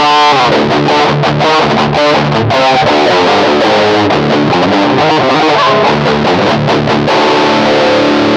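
Electric guitar played through an Electro-Harmonix Metal Muff Pocket pedal, giving a high-gain metal distortion. It plays a riff of short, chugging notes, then a held chord about seven seconds in.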